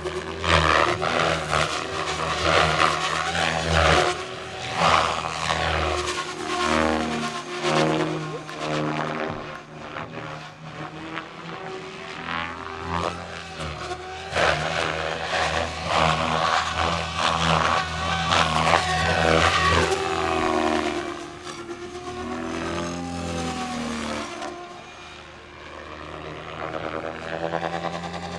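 Goblin 500 RC helicopter flying 3D aerobatics: its rotor runs with a steady low beat while the higher whine glides up and down and the loudness swells and dips as it swoops and loads the blades.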